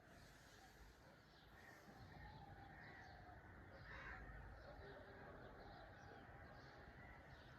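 Faint morning birdsong: scattered short chirps and calls from several birds, one a little louder about four seconds in, over a low steady background hum.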